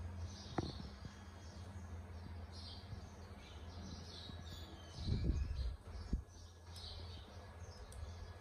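Small birds chirping intermittently over a low steady hum, with a few dull bumps; the loudest bumps come about five seconds in.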